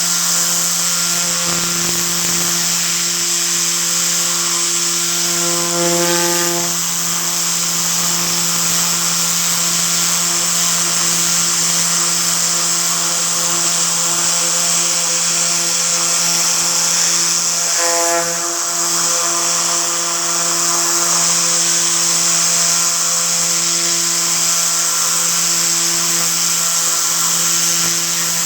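Tornador cleaning gun running on compressed air: a loud, steady hiss of air blasting from its whirling nozzle, over a steady low hum. The sound shifts briefly twice, about six seconds in and again after about eighteen seconds.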